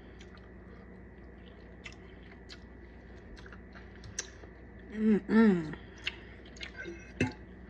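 Close-up chewing of food with small wet mouth clicks, and a brief two-syllable hum about five seconds in.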